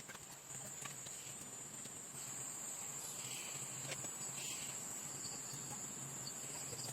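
Steady high-pitched insect chorus, growing louder about two seconds in, with a few light clicks.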